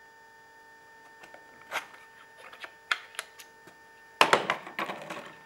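Clear acrylic turbine parts and a felt pen being handled on a workbench: a few light clicks and taps, then a busier clatter of knocks and scrapes about four seconds in. A steady mains hum runs underneath.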